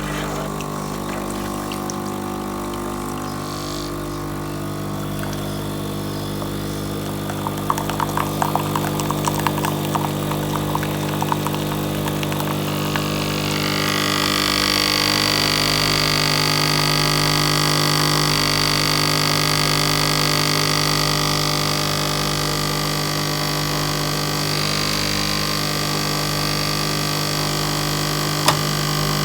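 Bosch Tassimo pod coffee machine brewing, its pump running with a steady hum. Crackling spurts come about a third of the way through, and from about halfway a higher hissing tone joins. A single sharp click sounds near the end.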